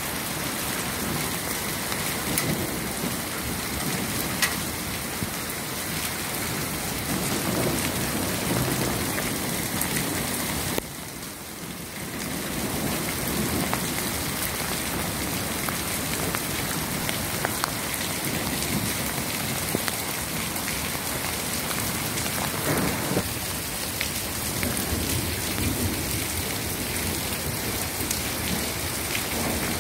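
Hail mixed with rain falling on a cobblestone street: a dense steady hiss of rain with many sharp ticks of hailstones striking. The sound dips briefly about eleven seconds in.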